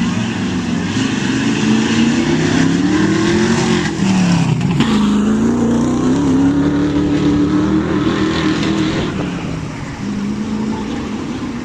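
Offroad vehicle engine revving hard under load: its pitch climbs, falls sharply about five seconds in, climbs again, and eases off near the end.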